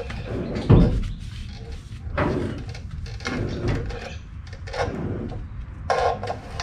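Front wheel and tyre being pushed by hand through the steering lock, with a heavy thump about a second in and several softer knocks and scrapes after it, as the tyre is checked for rubbing against the body.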